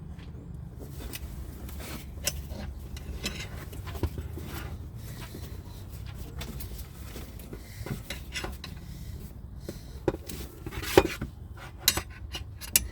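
Metal hand tools and parts clinking, knocking and scraping during work on a car engine. The clicks are scattered, with the sharpest knock about eleven seconds in and two more near the end, over a steady low rumble.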